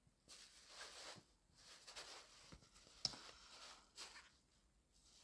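Near silence: faint rustling from the handheld phone being moved, with a small tap about three seconds in.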